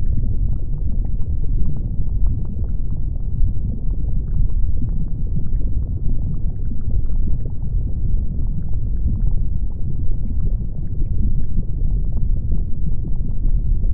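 Erupting volcano: a deep, steady rumble with faint crackles and pops scattered through it.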